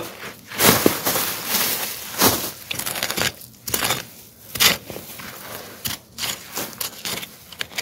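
Short-handled hand hoe (homi) scraping and chopping into clumpy soil in a series of irregular strokes, with loose soil and clods scattering, as sweet potatoes are dug up.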